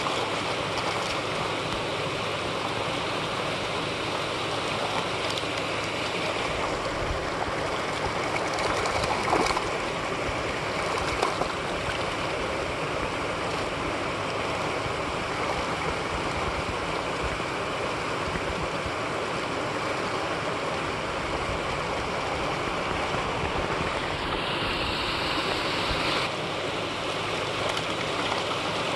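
Water pouring steadily down a sloped concrete spillway and churning at its foot, a continuous rushing splash. It briefly gets louder twice, about nine and eleven seconds in.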